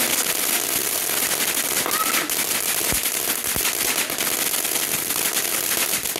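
Ground fountain fireworks hissing and crackling steadily as they spray sparks, with a couple of low thumps about three seconds in.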